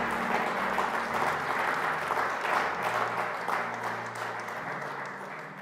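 Congregation applauding over soft, low held music chords; the applause fades away near the end.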